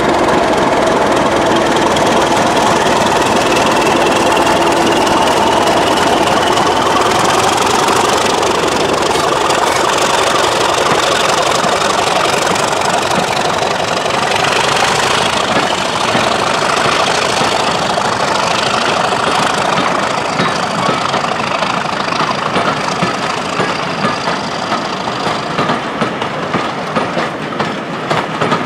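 English Electric Class 37 diesel locomotive working past with its train, the engine running under load with a high whine that rises slowly in pitch. Near the end the sound of the coaches' wheels rolling over the rails comes through more.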